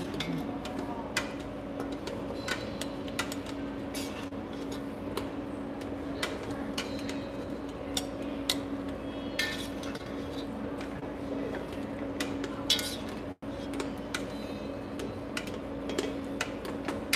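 Metal spoon and ladle clinking and scraping against a pot and a ceramic baking dish while stew filling is scooped, with many irregular knocks and clinks over a steady low hum.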